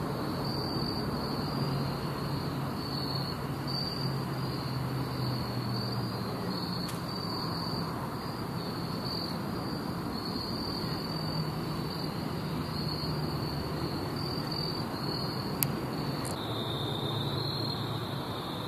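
Steady chorus of night insects, a high pulsing trill that runs on without a break. Two sharp clicks come near the end.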